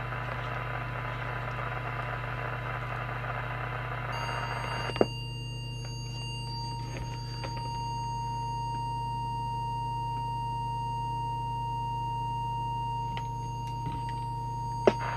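Steady hiss over a low hum, then, after a click about five seconds in, a steady test tone of about 1 kHz from a small audio oscillator. The tone is fed in to check the CB transmitter's FM deviation.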